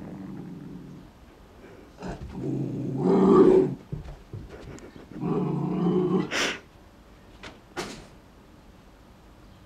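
Airedale Terrier puppy growling in low rumbling bouts, the main ones about two and five seconds in, the second ending in a short sharp yap.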